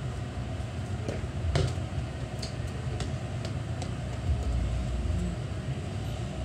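A football kicked about on a concrete yard: one sharp thud about a second and a half in, then a few lighter knocks, over a steady low rumble.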